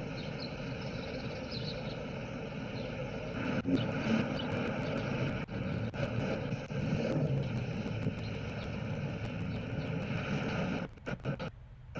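Steady street traffic and vehicle engine noise, with the sound briefly dropping out near the end.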